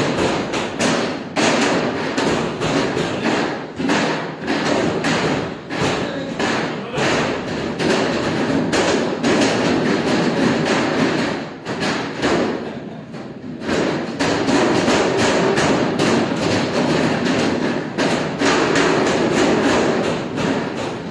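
Hand-pulled noodle dough being slapped and slammed against a steel worktable as it is stretched and folded, giving repeated dull thumps at an uneven pace. There is a pause of about two seconds a little past halfway.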